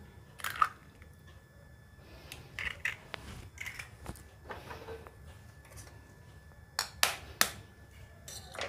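Raw eggs tapped against the rim of a glass bowl and cracked open: sharp clicks and shell crunches, a few at a time, with the loudest pair of taps about seven seconds in.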